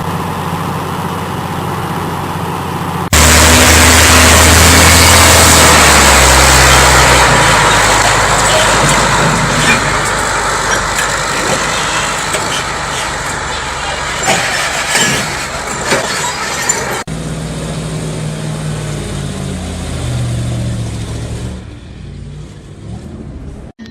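A large engine running. About three seconds in, a much louder rushing noise with knocks in it starts abruptly and runs over the engine; it cuts off suddenly, and the engine is heard alone again until it fades near the end.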